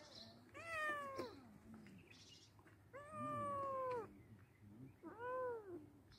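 Tabby cat meowing three times: a falling meow, then a longer one about a second long, then a short meow near the end that rises and falls.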